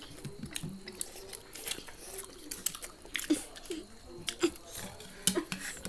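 Close-up eating sounds: a child chewing and working food with his fingers, with scattered short clicks and crunches.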